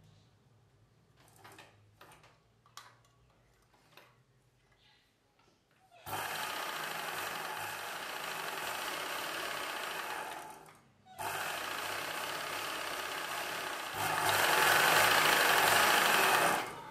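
Ralson sewing machine stitching a seam through blouse fabric and lining. After a few faint clicks, it starts about six seconds in, stops briefly near the middle, then runs again, louder over the last few seconds before stopping.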